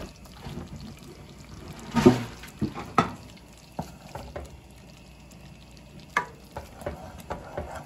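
Wooden spoon stirring a thick cheese sauce in a metal pot, with a few sharp knocks of the spoon against the pot, the loudest about two seconds in.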